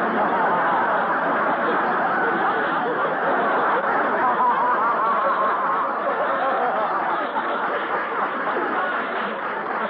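A radio studio audience laughing, many voices together, loud and sustained, easing off slightly near the end: laughter in response to a comedy line.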